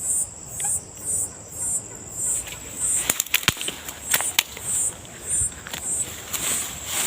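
A high-pitched call repeating about twice a second, steady and unbroken, from a night animal the explorer calls an annoying bird; about three seconds in, a quick run of sharp knocks and clicks, as of thrown objects striking, does not stop the calling.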